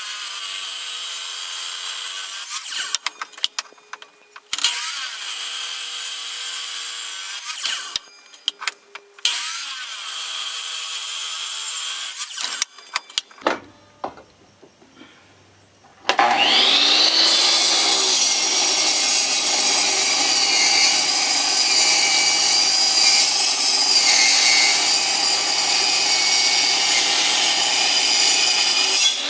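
DeWalt compound miter saw cutting through 2-inch metal bar stock. There are three short cuts of about three seconds each, then a longer cut of about thirteen seconds starting about halfway through. Each cut begins with the motor spinning up, and there are small clicks between them.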